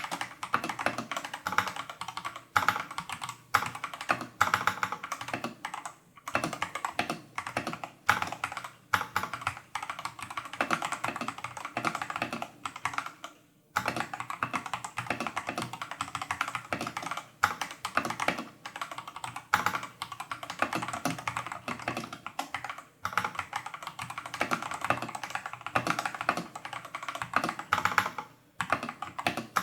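Steady typing on a Tester68 mechanical keyboard fitted with clone Holy Panda tactile switches, stock and factory-lubed, and XDA-profile keycaps: a dense run of key clacks with a brief pause about halfway.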